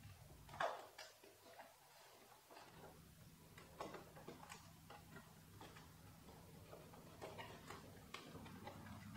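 Faint, irregular clicks and taps of a motorcycle's plastic side fairing being handled and tugged loose by hand, the sharpest about half a second in, over a faint low hum.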